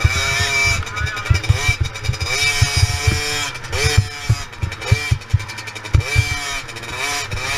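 Two-stroke 50cc CobraMoto motocross bike engine revving hard, its pitch rising and falling over and over as the throttle is worked through the track, with wind buffeting the helmet-mounted camera's microphone.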